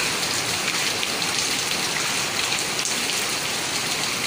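Steady rain falling on a concrete yard: an even hiss with scattered ticks of drops.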